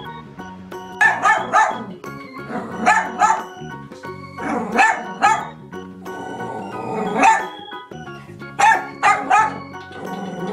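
Dachshund barking in short runs of two to four sharp barks every couple of seconds, over background music.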